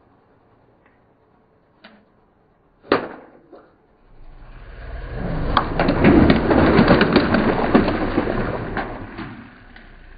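Water-filled long balloons bursting under a slowly rolling car tyre: one sharp pop about three seconds in, then several seconds of rapid pops and splashing water that swell and fade near the end.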